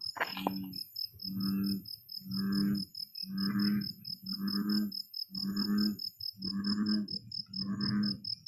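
An animal's low call, repeated about once a second, eight times in a row. Crickets chirp in a fast, steady pulse behind it.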